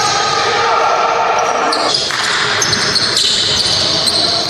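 Basketball game sounds on a hardwood court: the ball bouncing and players' sneakers squeaking as they run and cut, in a large sports hall.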